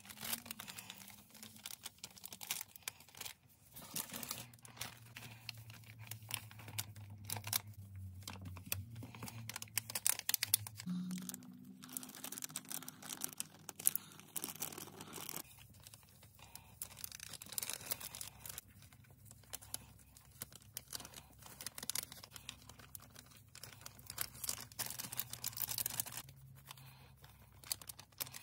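Plastic and foil packets of coloured powder crinkling and tearing in the hands, an irregular run of soft crackles as the powder is poured out over blocks of gym chalk, with a faint low hum underneath.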